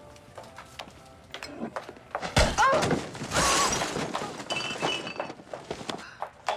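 A heavy thud followed by something shattering and breaking, about two to four seconds in, among scuffling knocks.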